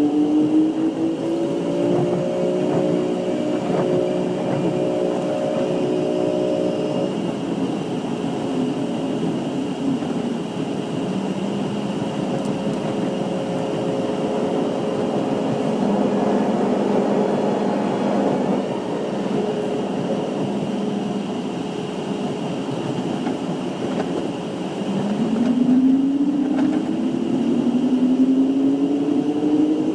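Passenger train running on the track, heard from inside the coach: a steady rumble with a tone that climbs in pitch and levels off about two seconds in, then starts climbing again near the end.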